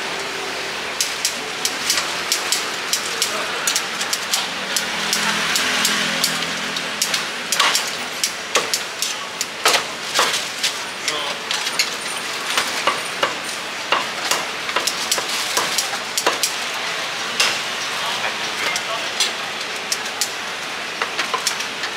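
Food-stall kitchen work: irregular sharp knocks and clinks of utensils as duck is cut and broth is ladled, over a steady hiss and background voices.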